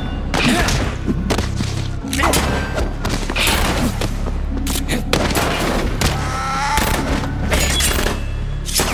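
Action-film fight soundtrack: handgun shots and hits crack out again and again over background music with a sustained low bass.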